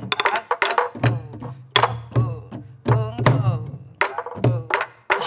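Several Korean sori-buk barrel drums played together in a steady jangdan rhythm, with sharp stick cracks on the wooden shells and deep palm thuds on the leather heads. A woman's voice chants along in time over the strokes.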